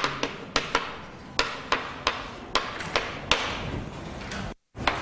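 Chalk writing on a blackboard: sharp, irregular taps a few times a second as the chalk strikes the board, with short scratchy strokes between them. It drops out abruptly for a moment near the end.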